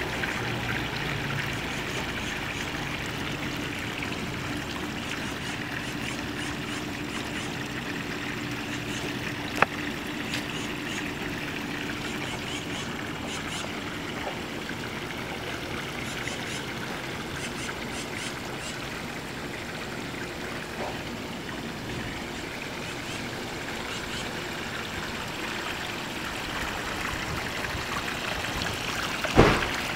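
Water trickling and splashing steadily into a backyard fish pond, with one click about ten seconds in and a louder sharp knock near the end.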